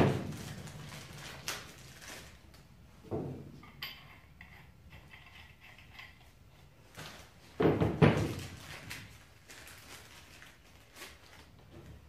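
Black steel pipe fittings being handled and screwed together on a wooden table: dull thuds and knocks as the parts are set down and shifted, loudest at the very start, again about three seconds in and in a cluster near eight seconds, with lighter metal clicks between.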